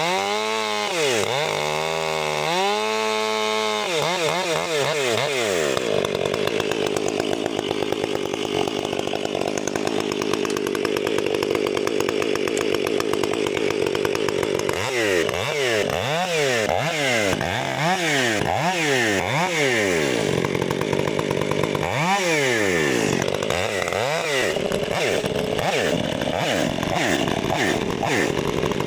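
Stihl 500i fuel-injected two-stroke chainsaw: revved in quick repeated blips, then held at steady full throttle for about ten seconds as in a cut. It is blipped repeatedly again, then held steady once more near the end.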